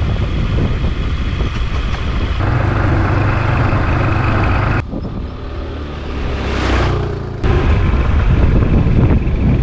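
Riding a motor scooter: a steady rumble of engine, road and wind noise. The sound changes abruptly about two and a half, five and seven and a half seconds in. A hiss swells and fades just before the last change.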